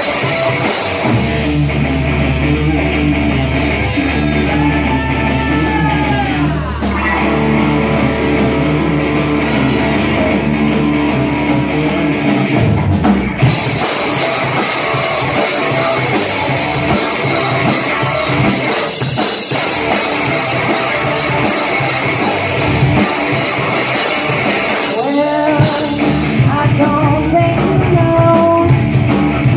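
Live rock band playing: electric guitars and a drum kit, with sung vocals at times.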